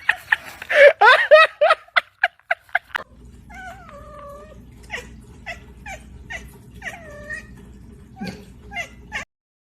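A cat meowing over and over: first a quick string of short, sharp calls, then after a cut a series of longer meows that slide down in pitch. The sound cuts off suddenly near the end.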